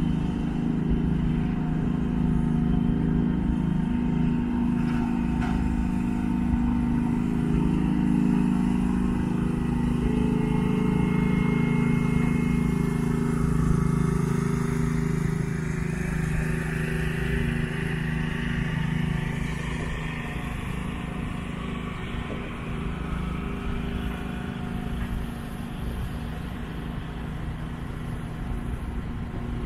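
Engine running steadily, a low droning hum that eases off in the second half.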